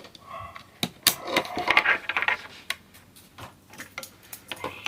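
Irregular sharp clicks and knocks of airsoft M4 rifle parts being handled and fitted back onto the gun, with some rustling in the first couple of seconds.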